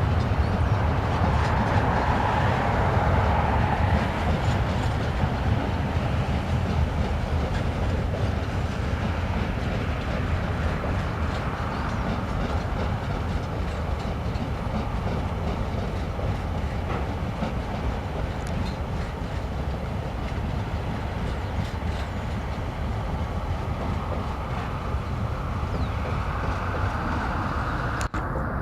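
Log wagons of a Tasrail freight train rolling past, a steady rumble of wheels on the track that eases a little over time. The sound drops out sharply twice near the end.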